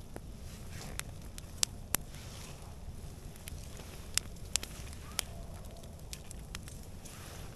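Wood campfire crackling, with about six sharp pops in the first five seconds over a low steady rumble.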